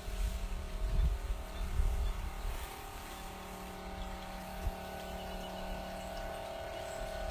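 Steady hum of an engine running at a constant speed, with low gusts of wind buffeting the microphone during the first few seconds.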